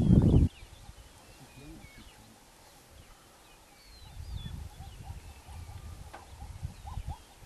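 Faint bird chirps and whistles over a low rumble. A louder low rumble cuts off suddenly about half a second in; the low rumble comes back about four seconds in, and a few short rising calls sound near the end.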